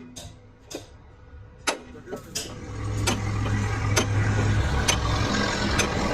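A few sharp metal clicks and knocks, then about two and a half seconds in a lathe motor starts up and runs with a steady low hum and a machining noise over it.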